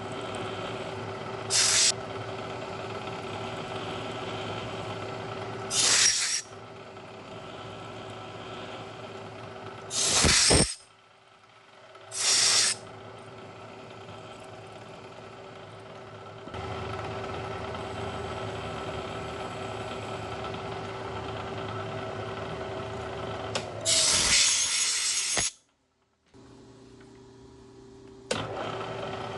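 Bridgeport milling machine running steadily while drilling and reaming a guide pin hole in an aluminum vise jaw, a steady hum with a held tone. It is broken by about five short, loud hissing bursts, each lasting a second or two.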